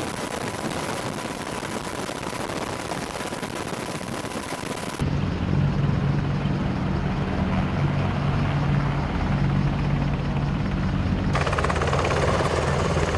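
AH-64 Apache helicopters running, turbine and rotor noise. A steady hiss with a thin whine gives way abruptly about five seconds in to a heavier, louder low hum, and the sound changes suddenly again about eleven seconds in.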